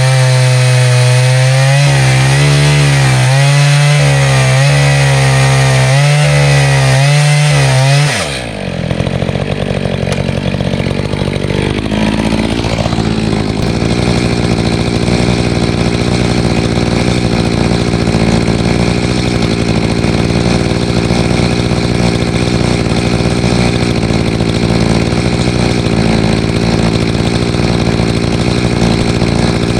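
Echo CS-590 two-stroke chainsaw ripping a cedar log on a chainsaw mill, its engine note wavering under load for about eight seconds. The pitch then falls and the saw runs on steadily for the rest.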